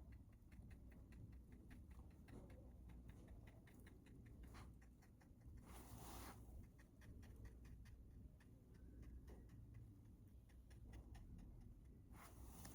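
Faint, fast, even ticking, about four ticks a second, over a low steady hum. A soft whooshing swell comes about six seconds in and again near the end.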